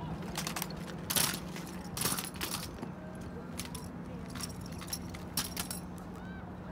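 Drill rifles handled in unison by an exhibition drill team: a series of sharp clacks as hands slap the rifles, with metallic rattling of the rifles' fittings, the loudest about one and two seconds in.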